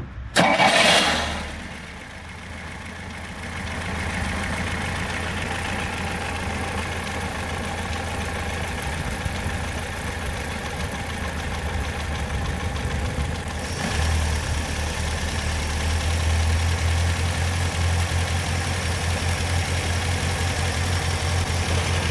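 A Fiat 125p's 1.3-litre four-cylinder engine idling at low revs, a litre of diesel mixed into its oil as an engine flush. A loud burst of noise about a second long comes near the start, and the idle grows louder a little past halfway.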